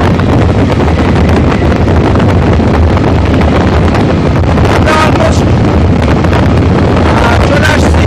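Loud, steady wind buffeting the microphone of a camera riding on a moving motorcycle, over a low, even rumble of the bike and road.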